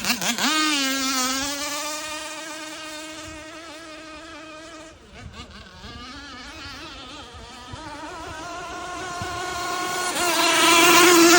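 RC speedboat's motor running at full throttle with a steady buzzing whine. It revs up sharply at the start, fades as the boat runs away, and grows louder again over the last few seconds as it comes back.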